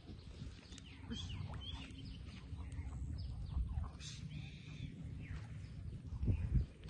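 Birds calling in short chirps and whistled glides over a low outdoor rumble, with a dull low thump near the end.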